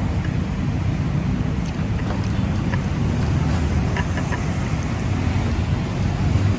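Steady low rumble of road traffic from the adjacent street and overhead toll road, mixed with wind buffeting the phone's microphone, with a few faint ticks.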